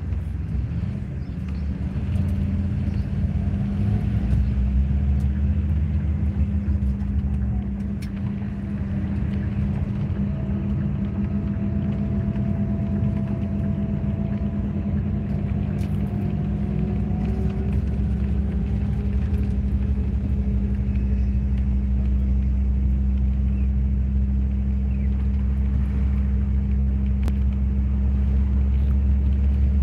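Steady low rumble of engine and road noise heard from inside a moving vehicle, with a constant drone.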